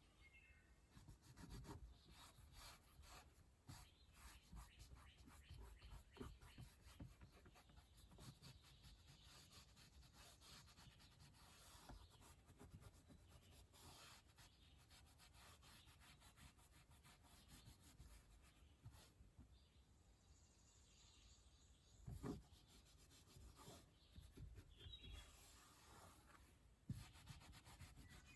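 Faint rubbing and handling: hands pressing and smoothing upholstery fabric onto a door panel insert freshly coated with spray adhesive, with a couple of soft knocks in the later part.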